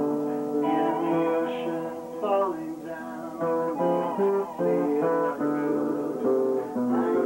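Lap steel guitar played with a slide: plucked notes that ring on, several sounding together, with pitch glides between notes.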